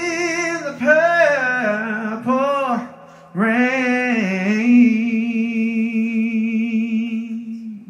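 Male singer's wordless vocal ad-lib: several swooping phrases, a brief breath about three seconds in, then one long note held with vibrato that fades out near the end.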